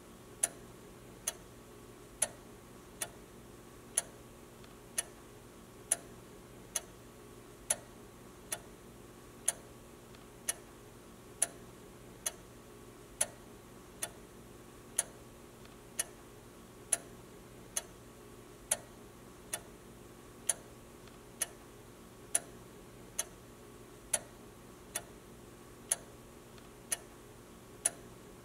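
Pendulum clock with weights on chains ticking steadily, a little faster than once a second, the ticks alternating slightly louder and softer as a tick-tock.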